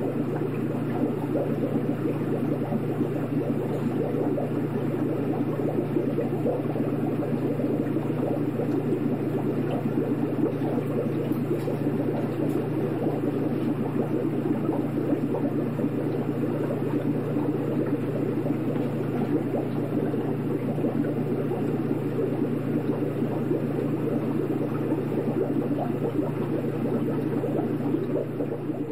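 Aquarium filter running: a steady low hum under continuous bubbling, churning water.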